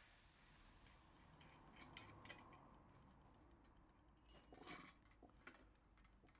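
Faint, scattered light metal clicks and taps from handling the parts of a Coleman 508A gasoline camp stove, over a low hiss.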